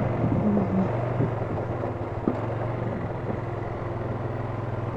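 ATV engine running steadily at low speed on a dirt trail, with a few sharp knocks from the machine jolting over the ground.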